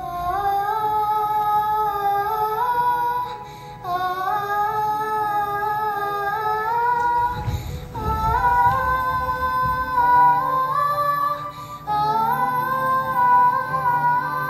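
A girl singing a wordless "ah" melody in four long phrases. Each phrase climbs in steps and is held, with a short breath between phrases.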